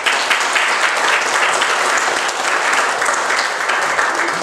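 Congregation applauding steadily, a dense patter of many hands clapping.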